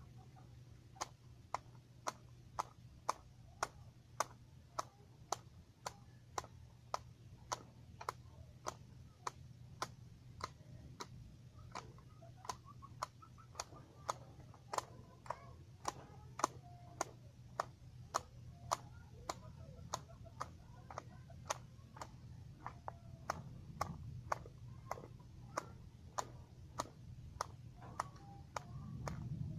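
Hand grass shears cutting grass: a sharp snip each time the blades close, repeating steadily at about one and a half cuts a second from about a second in.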